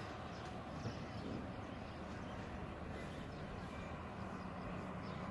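Faint, steady outdoor background noise with no distinct call or event.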